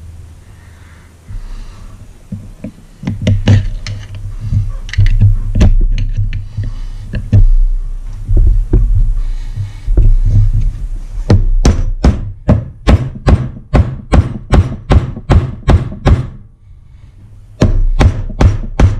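A hammer strikes a screwdriver to drive the old oil seal out of an outboard's lower crankshaft end cap. The first half is irregular knocks and thuds. From about halfway the blows come steadily at about three a second, stop briefly near the end, then start again.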